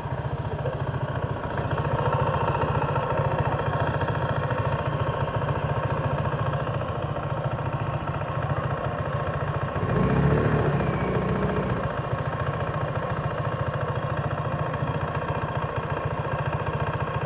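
Honda PCX scooter's single-cylinder engine running steadily with a rough, very noisy sound like a coconut-grater machine, swelling briefly louder about ten seconds in.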